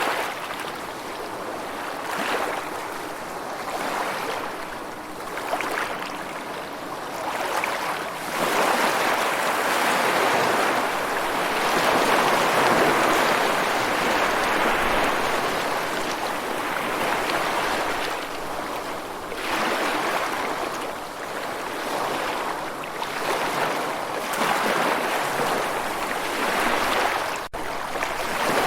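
Rushing water, in surges that swell and fall back every few seconds.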